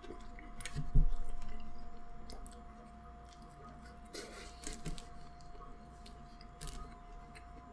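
A person biting into and chewing fast food close to the microphone: soft mouth clicks and smacks, with a soft thump about a second in. A faint steady hum runs underneath.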